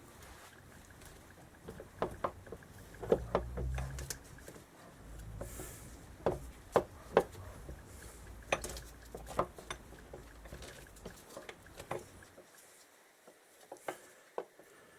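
Irregular clicks and knocks of motorcycle engine parts and tools being handled during engine disassembly, with the loudest knocks about three and seven seconds in.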